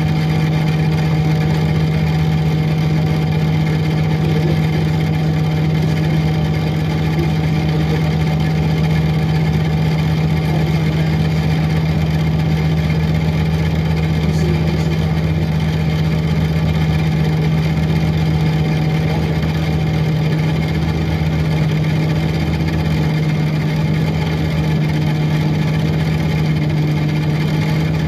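2006 Orion VII diesel-electric hybrid transit bus running steadily, heard from inside the bus: a constant low engine tone that holds the same pitch throughout, with no revving.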